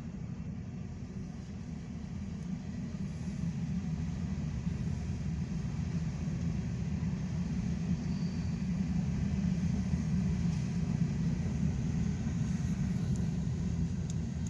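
Freight cars of a passing freight train rolling by: a steady low rumble of wheels on rail, growing somewhat louder partway through.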